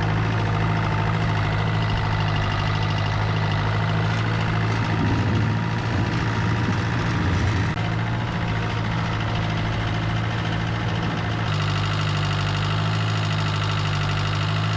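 Tractor engine running steadily at a constant speed, its tone growing brighter about eleven and a half seconds in.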